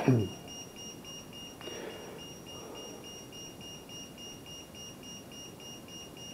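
Small electronic warning beeper of an RC helicopter setup, pulsing a thin high beep evenly several times a second. It opens with the fading tail of a loud clatter.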